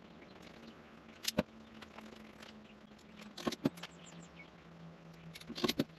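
Small sharp clicks from a hand crimping tool working 18-gauge wires into butt connectors. They come in three short clusters, about two seconds apart.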